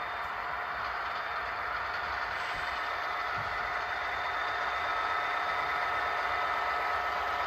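Model diesel locomotive and its loaded coal cars running on the layout track: a steady mechanical running sound with a faint rattle, getting a little louder as the train comes closer.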